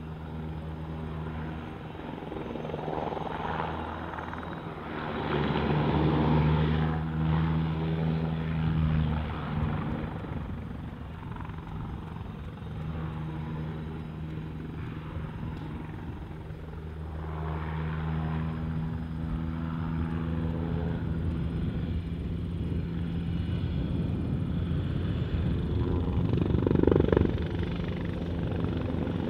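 Eurocopter Tiger ARH attack helicopter in display flight, the steady thrum of its rotors and twin turboshaft engines swelling and fading as it manoeuvres. It grows louder toward the end as it turns and heads nose-on toward the listener.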